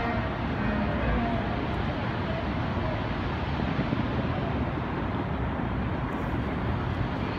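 Steady, even background din with faint murmured voices.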